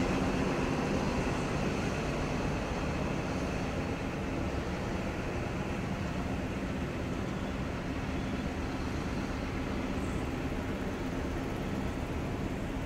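XPT diesel train departing: the power car's engine hum eases off over the first few seconds as it pulls away, then the steady rumble of the carriages rolling past over the rails.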